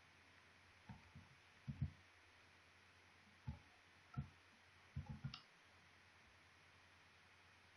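Scattered clicks of a computer mouse and keyboard: single clicks and short clusters about a second apart, with a quick run of several clicks about five seconds in.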